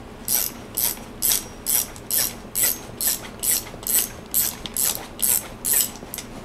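Hand ratchet clicking in quick, even strokes, about two a second, as it turns the screw of a crown race removal tool. The old fork's crown race is coming off freely.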